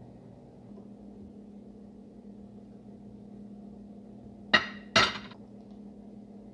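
Metal soup ladle knocking twice against the rim of a dish while serving soup. The two sharp clinks come about half a second apart, a little past halfway, over a steady low hum.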